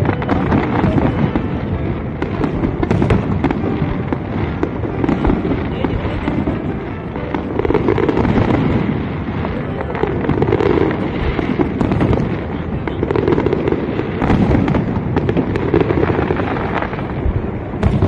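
Aerial fireworks display: a continuous barrage of overlapping shell bursts and crackling, with sharp bangs throughout.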